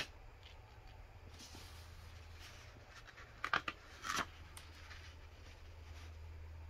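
Paper pages of a printed instruction booklet being handled and turned: a few faint rustles, then two short crisp page flips a little past halfway. A low steady hum sits underneath.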